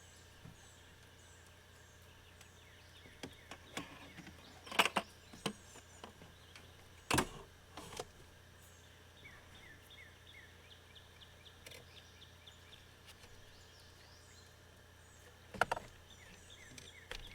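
Quiet outdoor lakeside ambience with a steady low hum and small birds chirping, broken by a few sharp knocks or splashes about five, seven and sixteen seconds in.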